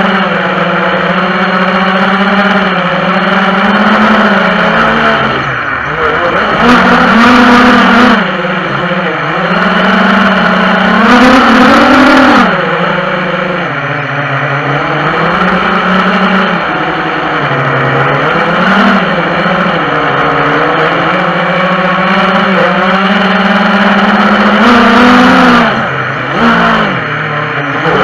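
FPV quadcopter's motors and propellers whining loudly, the pitch rising and falling as the throttle changes. A few harder throttle punches make it louder and add a rushing hiss.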